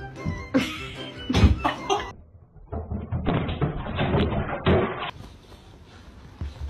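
Several knocks and thumps in separate bursts, the middle run sounding muffled, with a brief near-silent break about two seconds in.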